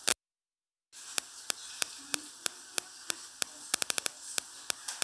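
Sharp clicks about three times a second over a steady hiss: a utensil knocking against a plastic mixing bowl as food is stirred. Right at the start a loud click is followed by the sound dropping out completely for nearly a second.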